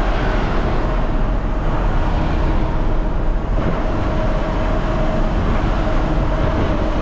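Steady running noise of a truck on the move, heard inside its cab: engine and road noise with a strong low rumble and a faint steady hum above it.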